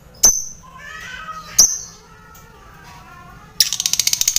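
Lovebird giving two sharp, shrill call notes over softer twittering, then breaking into a loud, rapid chattering trill (the long 'ngekek') about three and a half seconds in.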